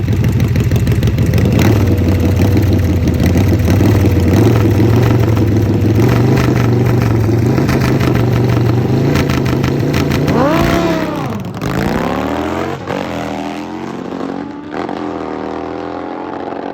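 Harley drag bike's V-twin engine running loud and steady, its pitch slowly climbing for about ten seconds. It then revs up and falls away sharply and carries on quieter.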